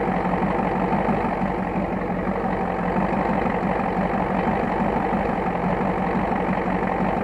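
1985 Ford F350's 6.9-litre IDI V8 diesel idling steadily, running again after years of sitting.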